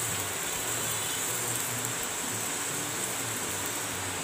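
Butter sizzling under missi rotis on a hot tawa: a steady, even hiss.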